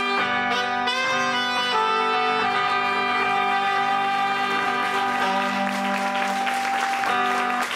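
Live rock band with a horn section of saxophone and trumpets over electric guitar and drums, playing a song's closing chord. After a couple of quick chord changes the band holds one long final chord while cymbals swell underneath, and everything cuts off together at the very end.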